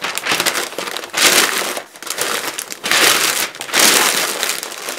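Sheets of plain newsprint packing paper rustling and crinkling as they are pulled over, crumpled and folded around a stack of china plates, with louder surges about a second in and again around three seconds in.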